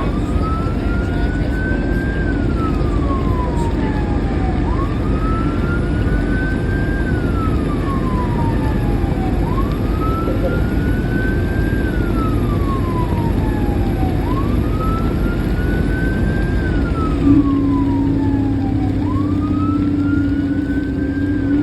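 Fire engine's wail siren slowly rising and falling, about one cycle every five seconds, over the heavy low rumble of the truck's engine and road noise. A steady low horn-like tone comes in about 17 seconds in and holds to the end.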